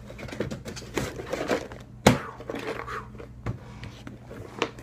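Packaging and a cardboard box being handled: crinkling and rustling, with a sharp knock about two seconds in and a lighter one later.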